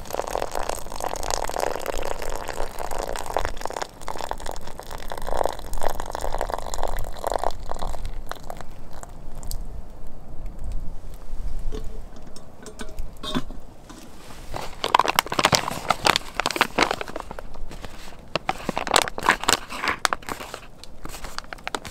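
Hot water poured from a kettle into a freeze-dried meal pouch, a steady rush of water for about the first seven seconds. After a quieter stretch with a few small clicks, the plastic pouch crinkles and rustles in repeated short bursts as it is handled and its top is sealed.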